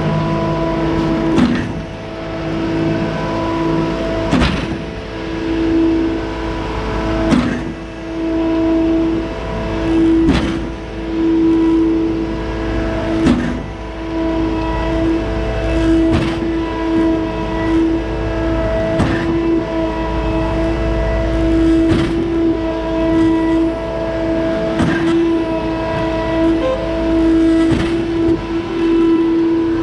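Concrete boom pump truck running under load with a steady engine whine, and a sharp clunk about every three seconds with each pump stroke as it pumps concrete.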